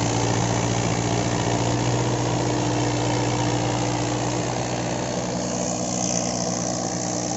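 Turbocharged Mahindra 585 four-cylinder diesel tractor engine running steadily under load, with a rotavator churning through the soil behind it.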